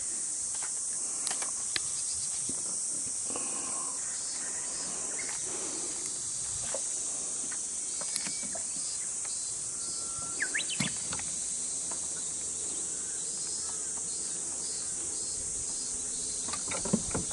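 Steady, high-pitched chorus of summer insects. A few faint clicks and knocks come now and then, and a short chirp sounds a little past halfway.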